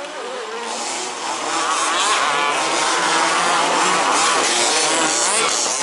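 Several radio-controlled 2WD racing buggies running on the track, their motors whining and repeatedly rising and falling in pitch as they accelerate and brake. The sound gets louder over the first two seconds as the cars come closer.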